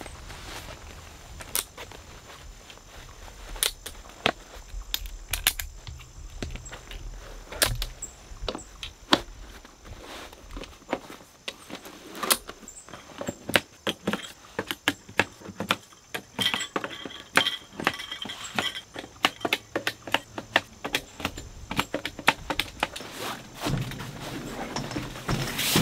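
Folding camp cot being assembled: irregular sharp clicks and knocks as its jointed legs are fitted and snapped onto the frame, coming thicker in the second half.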